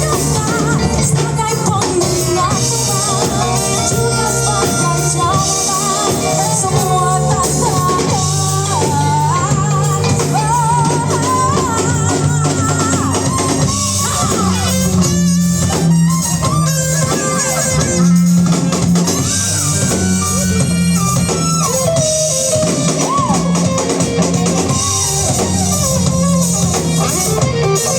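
Band playing rock music on drum kit, bass and guitar, with a wavering lead melody, sung or played, over roughly the first half; guitar and drums carry on after it.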